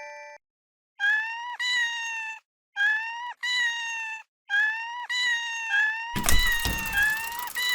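Level-crossing warning alarm sounding in repeated pitched tones, each with a short dip in pitch at its start and coming in close pairs. About six seconds in, a loud passing-vehicle noise, likely the train, joins the alarm, which keeps sounding over it.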